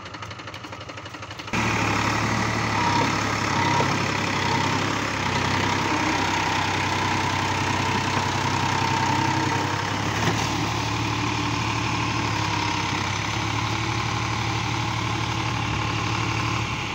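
New Holland 4710 tractor's three-cylinder diesel engine running steadily as the tractor drives through deep paddy-field mud. It is fainter for the first second and a half, then loud and steady.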